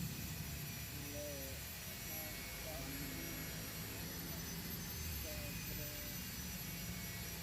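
A steady low background hum with faint, distant voices.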